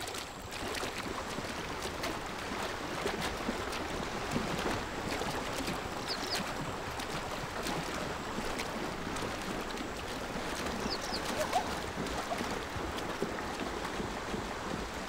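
Zebras' hooves splashing and sloshing through shallow water, a steady churning of water with many small splashes.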